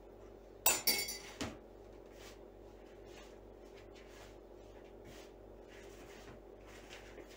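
A spoon clinks against a ceramic mug a few times about a second in as it is set down. Then come faint, soft sounds of dough being kneaded by hand in a plastic bowl.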